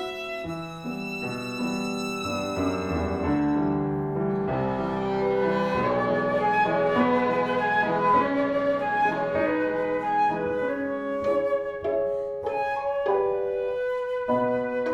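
A small instrumental trio playing a piece, with sustained melodic notes over moving accompaniment.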